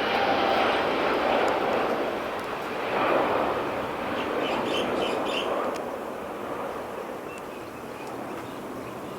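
Jet airliner engines during takeoff: a loud, steady rushing noise that fades away after about six seconds as the plane moves off.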